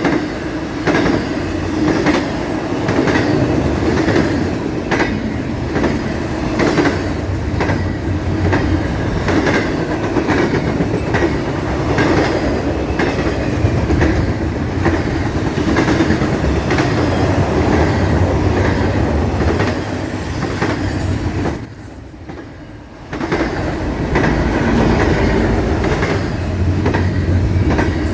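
CSX intermodal freight train's cars rolling past, steel wheels clicking over rail joints in a repeated clickety-clack over a steady rumble. A little past twenty seconds in it briefly drops quieter for about a second.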